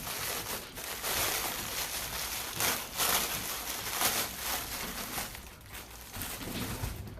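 Rustling and handling noise, an irregular run of scraping, crinkling strokes, busiest in the middle.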